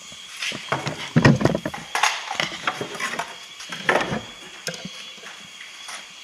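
Wooden beehive parts and a thin metal strip being handled, picked up and set down: irregular knocks and clatters of wood and metal, loudest about a second in and again near four seconds.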